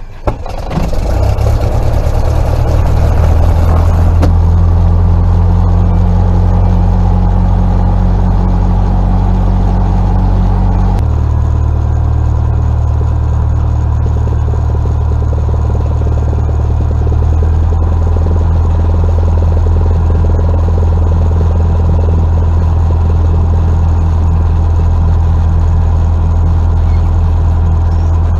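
Cessna 172's piston engine catching just after start, building over the first couple of seconds to a steady run with the propeller turning, heard from inside the cabin. The engine note shifts about 11 seconds in and again about 17 seconds in, as the power setting changes.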